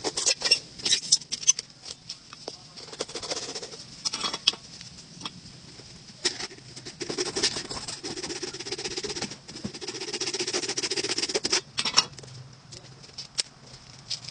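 A saw cutting through the hard, dry shell of a dried gourd: irregular scratchy rasping with sharp clicks and snaps in the first couple of seconds, then a steadier run of rasping strokes from about the middle until near the end.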